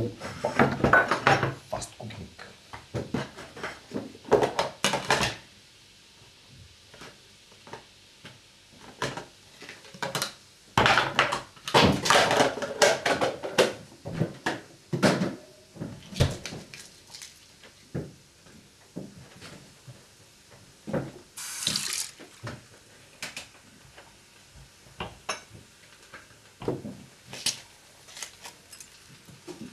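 Kitchen food-preparation noises at a wooden cutting board: irregular bursts of handling and splashing noise, loudest at the start and again around the middle, with scattered sharp knocks and clicks between them.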